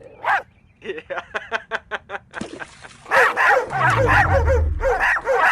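A pet animal calling: one short call, then a quick run of short yaps, then from about three seconds in a louder series of calls at about three a second over a low rumble.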